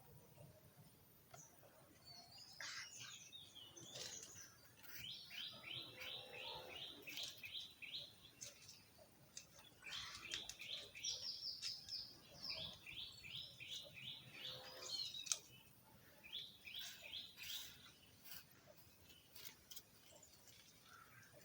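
A bird singing in the background: runs of quick, evenly spaced high notes, each run lasting a second or two, repeated four or five times, with a few faint clicks in between.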